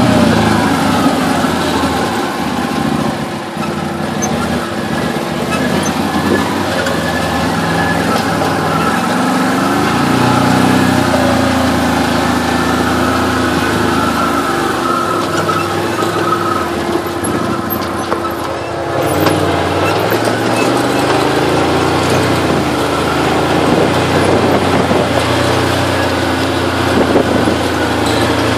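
Can-Am Maverick side-by-side's engine running while driving a rocky dirt trail, its pitch rising and falling as the revs change, held steady for a stretch in the middle and dropping about two-thirds of the way through.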